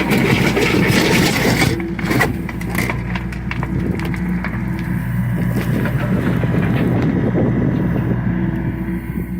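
John Deere excavator's diesel engine running at a steady working speed, with scraping and knocking in the first couple of seconds.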